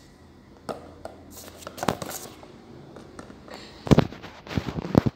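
Light rustling and clicks of a hand handling a small model airplane. From about four seconds in comes a run of loud, sharp knocks and clatters as the camera falls over and is grabbed.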